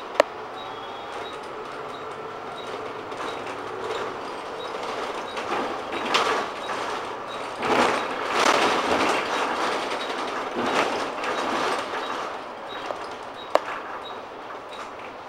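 Inside a Volvo Plaxton President double-decker bus on the move: steady engine and road noise that swells louder around the middle. There is a sharp knock just after the start and another near the end, and a faint high tick repeats about twice a second.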